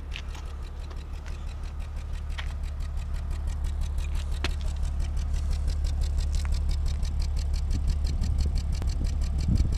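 BMW E36 328i's straight-six engine idling roughly with a misfire, with an even pulsing and a few sharp ticks. The owner suspects low fuel pressure or faulty O2 sensors.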